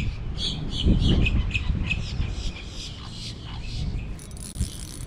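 Birds chirping in a rapid run of short, high calls that thin out after about two seconds, over wind buffeting the microphone.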